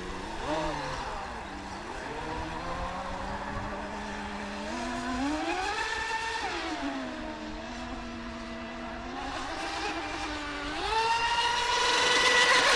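Electric RC speedboat's brushless motor whining, its pitch rising and falling with the throttle. It climbs about five seconds in, drops back, then rises to its loudest and highest run near the end.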